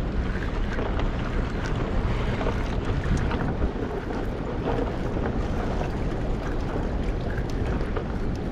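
Steady rush of wind buffeting the microphone over fast-flowing river water below a dam, with a few faint ticks.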